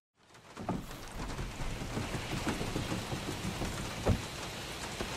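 Steady rain with scattered patters of drops, and one short dull thud about four seconds in.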